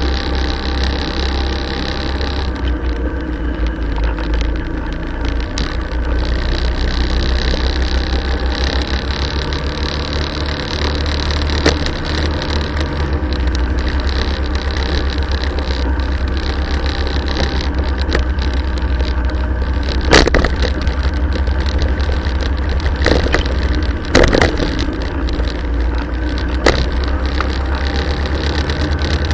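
Motorcycle engine running steadily at low road speed, heard from a camera mounted on the bike, with a strong low rumble. A few short, sharp knocks break through, the loudest about twenty seconds in.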